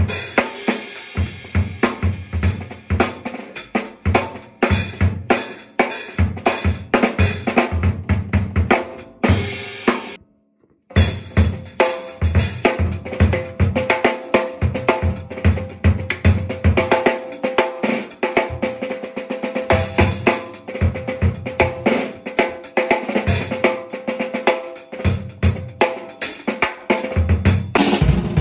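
Acoustic drum kit played hard and fast: rapid snare and bass drum strokes with cymbal crashes. There is a brief silent gap about ten seconds in.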